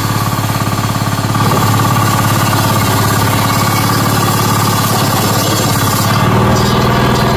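Table saw with a large circular blade running and ripping a wooden board lengthwise; the sound grows louder as the blade bites into the wood about a second and a half in, and changes again near the end as the cut finishes.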